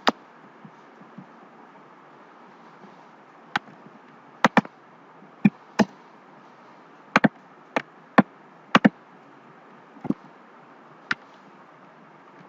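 Sharp clicks of a computer keyboard and mouse, about fourteen, irregularly spaced with several in quick pairs, over a steady faint hiss.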